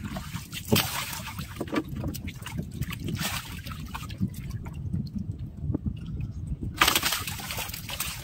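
Water splashing and sloshing as fish are netted from a lake and thrash in the water lying in the bottom of a wooden boat. There are sharper splashes about a second in and again near the end.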